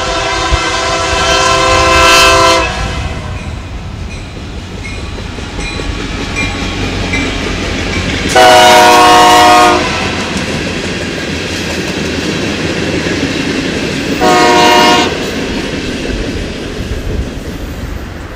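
Union Pacific EMD SD70M locomotive's multi-chime air horn sounding three blasts: a long one at the start, another about eight seconds in and a short one near fourteen seconds. Between the blasts, the passing freight train's wheels rumble and clatter on the rails.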